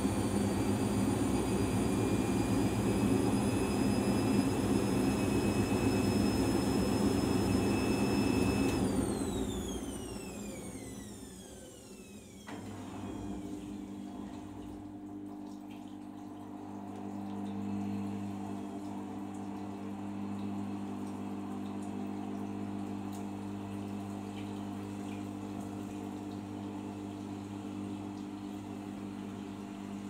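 Arçelik 5083 front-loading washing machine in an intermediate spin: the motor's high whine climbs slightly, then falls away as the drum coasts down about nine seconds in. From about twelve seconds a steady low pump hum runs with water flowing, as the drain pump empties the sudsy drum.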